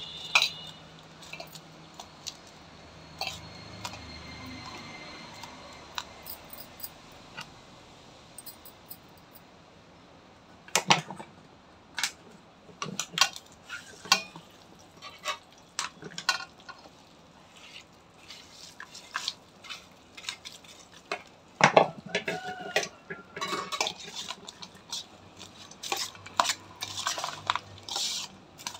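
Bangles clinking and knocking against a stainless steel bowl as cooked rice is mixed by hand, in irregular clicks that grow frequent in the second half. One louder knock about two-thirds through sets the bowl ringing briefly.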